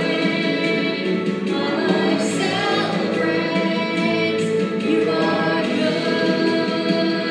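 Singing with music: several voices, a woman's among them, holding long sustained notes.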